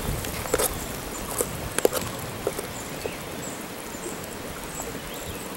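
Broth at a rolling boil in a metal pot over a wood fire, a steady bubbling hiss, while a metal spoon stirs it and taps the pot: a few sharp clicks in the first three seconds.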